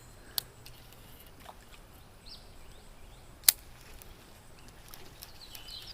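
Quiet outdoor background with faint bird chirps and two sharp clicks about three seconds apart, the second much louder.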